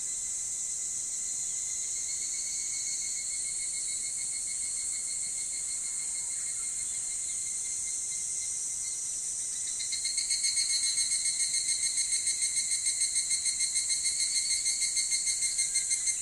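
Higurashi (evening cicadas) calling in a steady high-pitched chorus. About ten seconds in, a louder pulsing kana-kana call starts up over it, at about five pulses a second.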